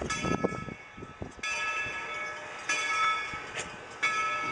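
Steam locomotive's bell ringing as the engine approaches: four strikes about 1.3 seconds apart, each ringing out and fading before the next.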